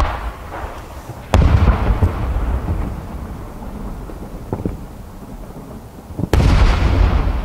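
Aerial firework shells bursting in the sky: a small crack at the start, then two loud bangs, one about a second in and one near the end, each followed by a long low rolling echo.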